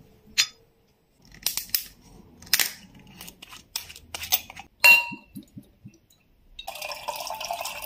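Screw cap being twisted off a small glass liquor bottle, a string of sharp clicks with a louder ringing glass clink about five seconds in, then clear baijiu pouring out of the bottle in a steady splashing stream near the end.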